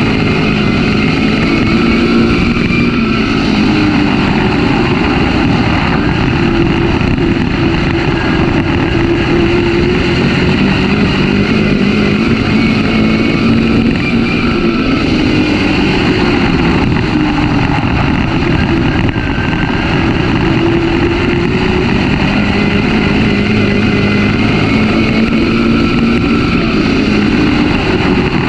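Dirt-track race car's engine running hard under race load, heard from inside the cockpit. Its pitch climbs and drops again and again as the car laps the oval.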